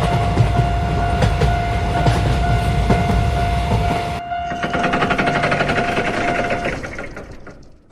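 Train rumbling and clattering past under a steady high tone. About four seconds in the rumble drops away, leaving a fast rattling that fades out near the end.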